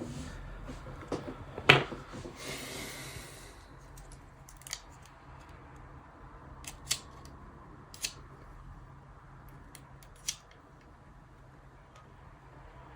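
A few sharp, small clicks and taps spaced one to two seconds apart, the loudest about two seconds in, from small parts and hand tools being handled on a phone under repair. A brief rustle comes between the first clicks.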